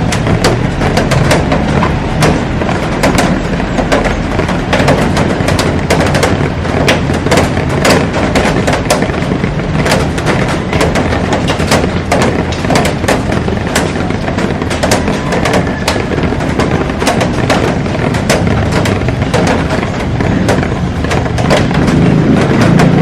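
Heavy rain pouring onto a glass roof: a dense, steady hiss of rainfall with a constant patter of sharp, cracking drop impacts on the glass.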